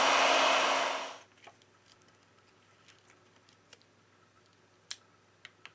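Heat gun blowing hot air onto the phone's glass to soften adhesive: a steady loud rush with a low hum, cutting off about a second in. Then near quiet with a few faint clicks as the opened phone's frame and parts are handled.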